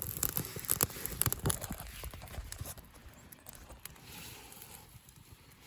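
Small campfire of juniper bark and twigs catching, with sharp crackles and pops that thin out after about three seconds.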